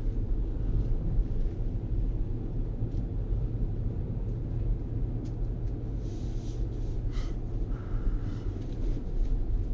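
Steady low rumble of road and wind noise inside a moving Tesla Model S P100D cabin, with no engine sound, and a few light taps and rustles about six to seven seconds in.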